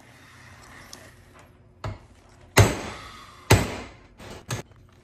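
Sledgehammer blows on the cast-iron apron of a lathe: two heavy metal strikes about a second apart, each ringing briefly, then a couple of lighter knocks. They are blows to drive out a stuck slider rod.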